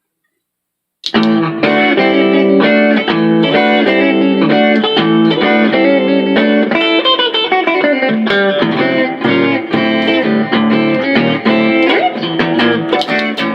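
Electric guitar music with a busy run of quick notes over held low notes, starting suddenly about a second in.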